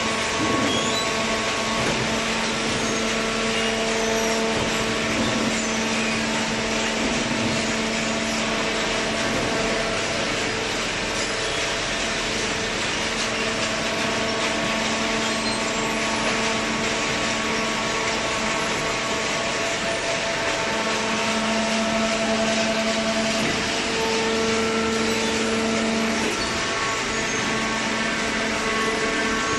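Cardboard shredder and hydraulic baler machinery running steadily: a continuous machine hum over a hiss.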